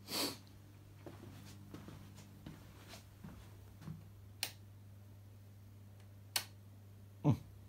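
Rotary control knob on the front panel of a 1966 Philco valve TV being turned, giving two sharp clicks about two seconds apart, over a steady low electrical hum.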